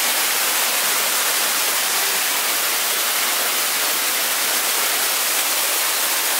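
Water falling steadily from an artificial water-curtain feature, an even splashing rush with no breaks.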